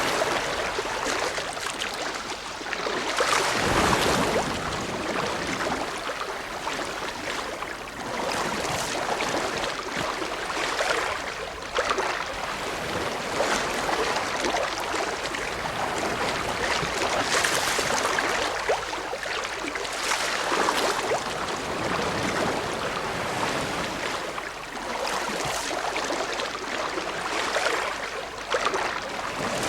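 Ocean waves breaking and washing ashore, a steady rush of surf that swells and recedes every few seconds.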